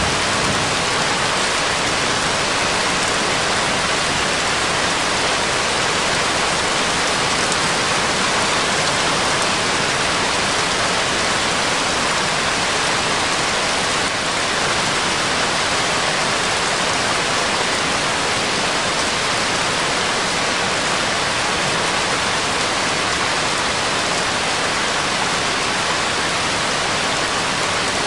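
Steady, dense rain sound: an even hiss of many drops that does not change.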